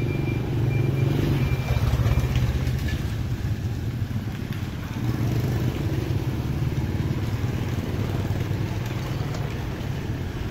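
Small motorbike engines running as scooters pass close by, loudest about a second or two in and again around five seconds in.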